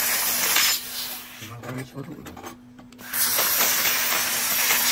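Handheld fiber laser cutting thin sheet steel: a loud, even hiss of the gas jet and spray of molten metal at the nozzle. It stops less than a second in and resumes after about three seconds, over a steady low hum.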